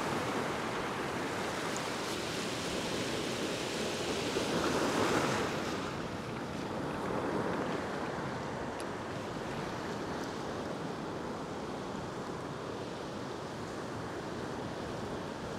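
Ocean surf breaking and washing across a flat rock ledge: a steady rushing of white water that swells to its loudest about five seconds in, then settles.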